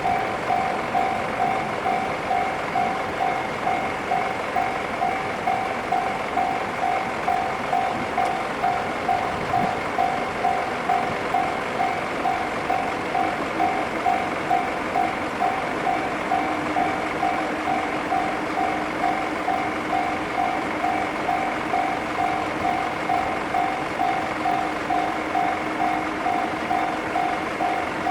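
Japanese railway level-crossing warning bell ringing, an evenly repeating electronic clang at about two strikes a second.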